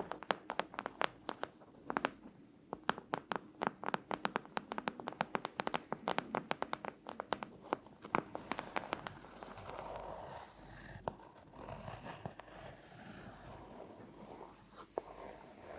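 ASMR tapping: quick, crisp taps, several a second, for about the first half, then soft scratching and rubbing with only an occasional tap.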